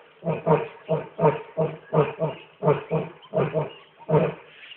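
Lion roaring in a run of short, deep grunts, about two a second, some coming in close pairs.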